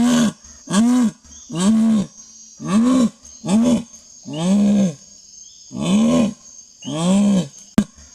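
Jaguar calling: a series of eight short calls, each rising then falling in pitch, about one a second, with a sharp click near the end.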